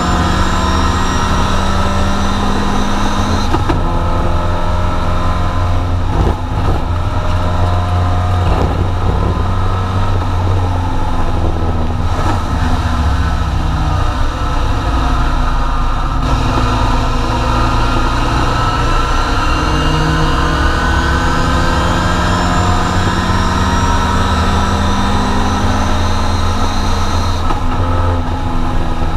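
Triumph TR4 race car's four-cylinder engine under hard use, heard from inside the cockpit, its note falling and rising several times through the gears and corners.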